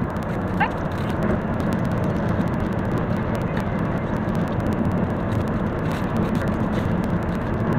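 Steady road and engine noise inside a moving car's cabin, a dense rumble with a few short rising chirps over it.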